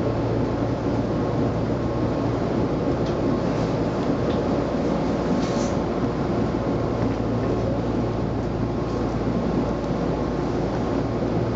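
Tobu 20050 series electric commuter train running slowly alongside a station platform, heard from inside the front car: a steady rumble of motors and wheels on the rails with a few faint light ticks.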